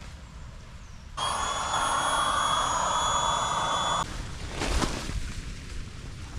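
Jet aircraft engine noise: a loud rush with a steady high whine, lasting about three seconds and starting and stopping abruptly.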